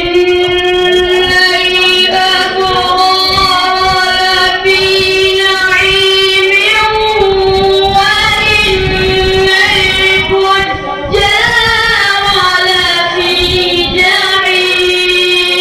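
A boy reciting the Quran in the melodic tilawat style, drawing out one long phrase on a nearly steady note with small ornamental turns, the pitch stepping slightly about halfway through and again near eleven seconds in.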